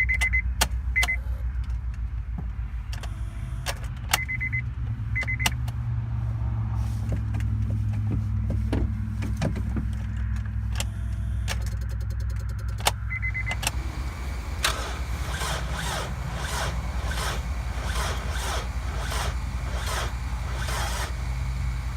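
An old car's engine running steadily after sitting unstarted for over a year, a continuous low rumble. Short runs of a high electronic beep come three times, and there are scattered clicks.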